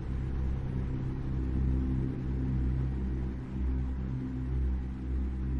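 A low, steady rumbling drone of a few even, deep tones that swells slightly and falls back.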